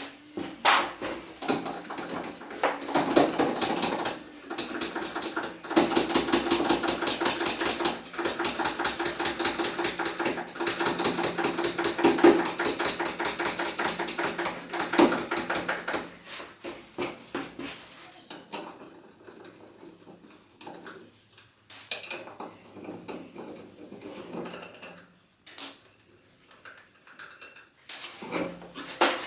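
Hand tools working on metal: a long run of rapid clicking and clanking in the first half, then separate metal knocks and clinks that thin out toward the end.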